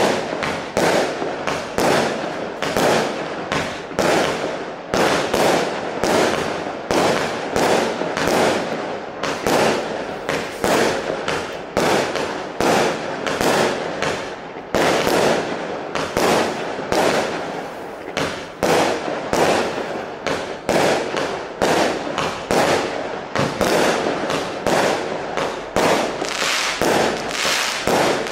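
Standard Fireworks 'Payback' single-ignition firework cake firing shot after shot in a steady stream, about two a second, each tube launching and bursting in the air.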